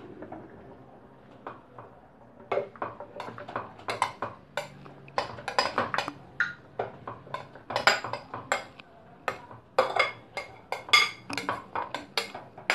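Metal spoon scraping and tapping inside a glass bowl, emptying grated cassava into a plastic blender jar: an irregular run of clinks and knocks, a few a second, starting about a second and a half in.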